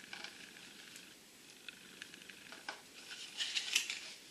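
Light clicks and rattles of a plastic model-kit sprue being handled and laid on a cardboard box, with a cluster of sharper ticks about three and a half seconds in.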